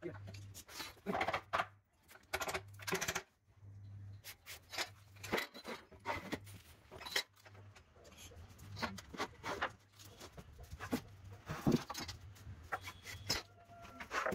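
Irregular knocks, taps and scrapes of plywood and block-board pieces and hand tools being handled and marked during carpentry, over an on-and-off low hum.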